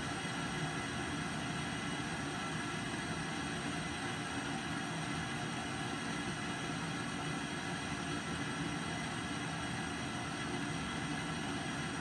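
Steady, even rushing noise of hot water being drawn through a combi boiler from a running tap, at a flow set to about 11.9 litres a minute.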